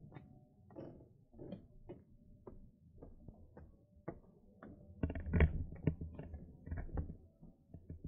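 Footsteps of a hiker walking on a trail, about two steps a second, with louder scuffing and rustling from about five seconds in.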